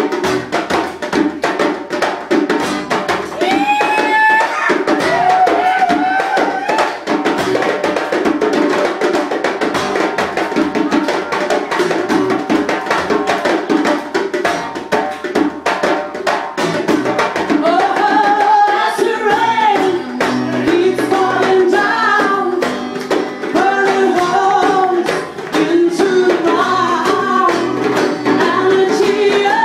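Live acoustic band: two djembe hand drums keep up a steady rhythm under strummed acoustic guitar. A woman's voice sings over them for a few seconds near the start and again through the second half.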